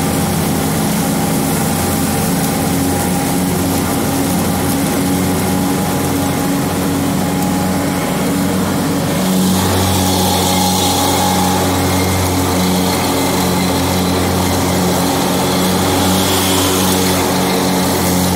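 John Deere X724 riding lawn tractor running steadily while mowing, its engine and cutting deck making a constant drone. A little after halfway the sound gets fuller and deeper, with a slight pulsing in the low end.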